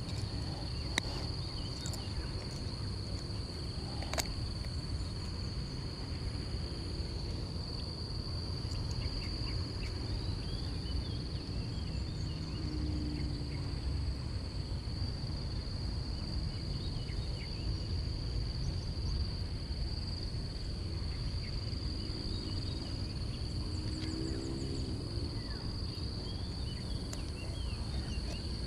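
A steady high-pitched insect drone runs without a break over a constant low rumbling noise. There are two sharp clicks in the first few seconds.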